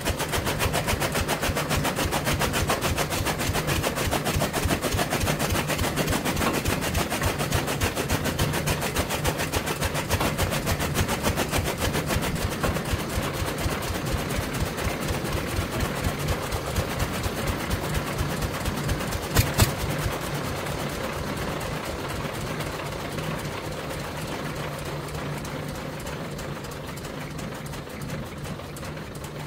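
Chaff cutter (toka) running and chopping green fodder stalks: a rapid, even clatter over a steady hum. There is one sharp knock about two-thirds of the way through, and the sound eases off gradually near the end.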